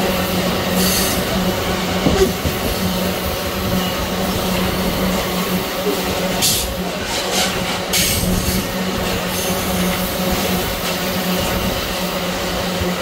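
Loaded iron-ore wagons of a long freight train rolling past on steel rails with a steady rumble and hum, and brief high-pitched wheel squeals a few times.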